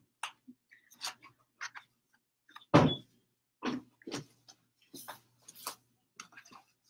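Books being handled: a run of short rustles and knocks, with one louder thump nearly three seconds in.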